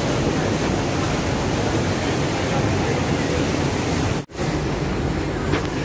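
Steady rushing of water in a river-rapids ride's boat channel, cutting out for a split second about four seconds in.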